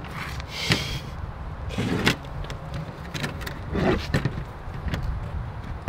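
A few scattered knocks and scrapes as a PVC potato-cannon barrel and a brick and stone tile are shifted on a folding table, over a steady low rumble.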